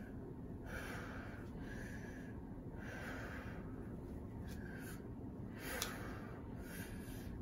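A young boy taking deep, audible breaths in and out, cooling down after exercise. Each breath is a soft airy rush, about one a second, and there is one brief click about six seconds in.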